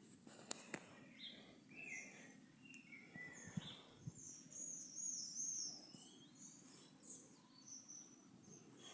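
Several birds chirping and calling in short, high, curving notes over a faint steady background of outdoor noise, with a sharp click about half a second in.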